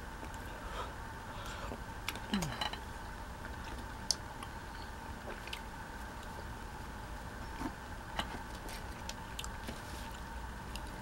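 Scattered soft clicks and ticks of eating at the table: a steel knife and fork tapping and scraping on a paper plate, and a baby wipe being handled, over a faint steady hum.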